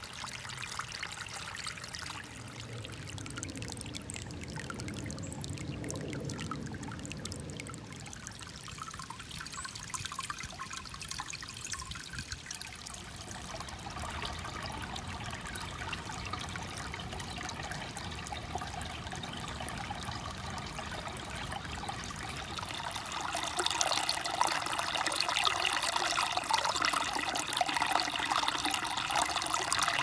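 Small shallow creek trickling and splashing over stones, a steady rush of running water that grows louder about three-quarters of the way through.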